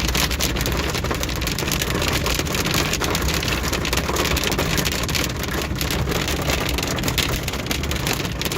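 Hail and heavy rain pelting a car's roof and windshield, a dense patter of hits over steady road and engine noise.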